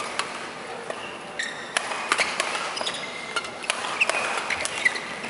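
Badminton doubles rally: rackets striking the shuttlecock in sharp smacks that start about a second and a half in, with shoes squeaking on the court floor.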